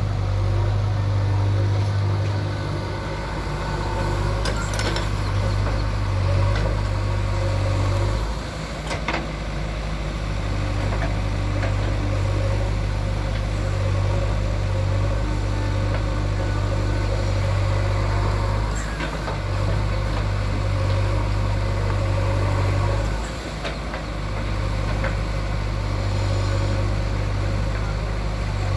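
JCB 3DX backhoe loader's diesel engine running steadily with a deep hum, easing off briefly twice, with a few sharp metallic knocks.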